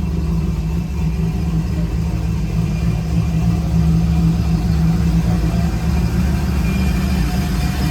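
Car's LS-swapped V8 engine idling steadily with a low rumble.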